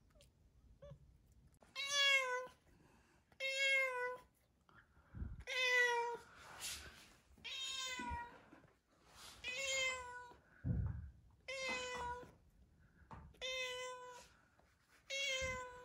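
A cat meowing over and over, about nine long drawn-out meows roughly every one and a half to two seconds, starting about two seconds in. A few dull knocks come between some of the meows.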